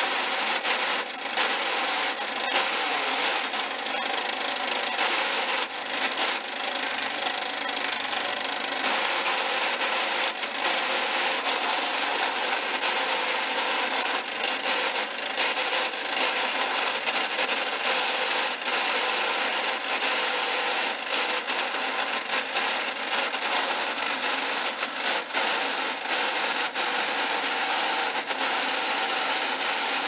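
John Deere STX30 riding mower running and driving with a harsh, steady grinding rattle and frequent sharp clicks: grinding that the owner thinks is a failing transmission, though it could be something stuck that keeps it from shifting into gear.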